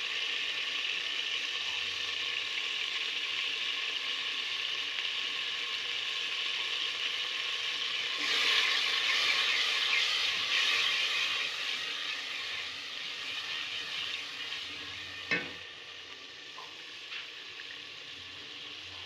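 Onion-tomato masala sizzling in hot oil in an aluminium pot while a wooden spoon stirs it, at the stage of frying in freshly added turmeric powder. The sizzle swells for a few seconds near the middle, then dies down, and there is a single sharp knock about fifteen seconds in.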